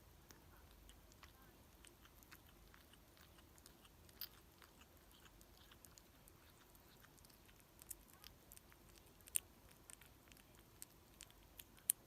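A kitten chewing and biting its food: faint, irregular small clicks and crunches, with a few louder ones about four seconds in, near the middle and at the very end.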